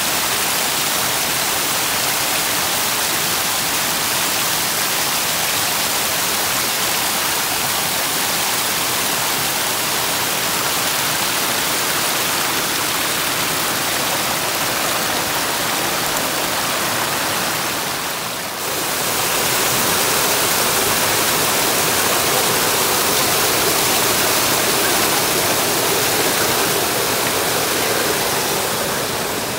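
Water rushing steadily over a small rock cascade, an even splashing hiss. It dips briefly about two-thirds of the way through, then returns a little louder.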